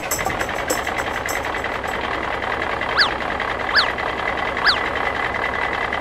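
Tractor engine idling steadily, with three short falling chirps about halfway through.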